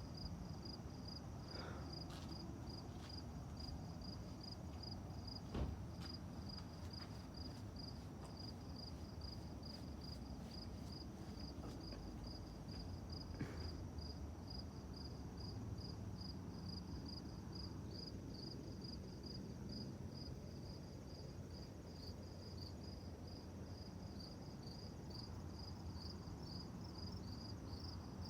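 A cricket chirping steadily, about two to three high chirps a second, over a faint low steady rumble, with a couple of faint clicks.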